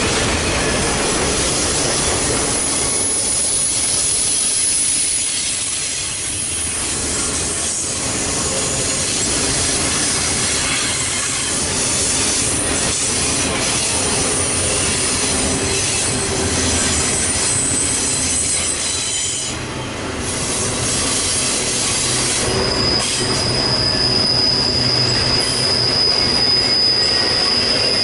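Double-stack intermodal freight cars rolling past at speed, with a steady rumble and rattle of steel wheels on rail. Thin high wheel squeal comes and goes, and a strong steady high-pitched squeal sets in during the last few seconds.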